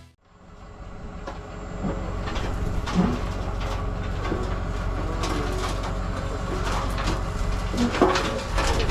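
A machine engine running steadily with a low hum, fading in over the first couple of seconds, with a few scattered clicks and knocks.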